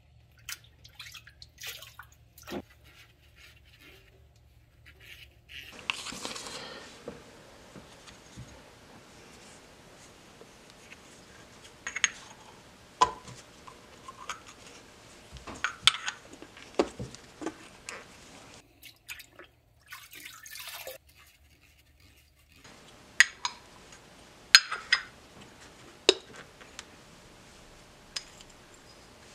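Scattered clinks and taps of metal brake-caliper parts being handled and set down on a workbench, with a short stretch of rustling about six seconds in.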